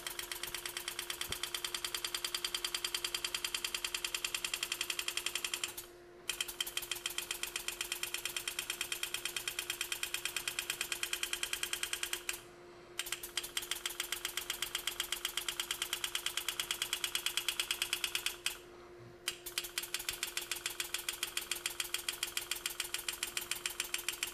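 Pneumatic power-assist engraving handpiece hammering a flat graver through metal as it cuts a flare cut. It gives a rapid, even ticking in four runs, with short pauses about 6, 12 and 18 seconds in. A steady hum sits underneath.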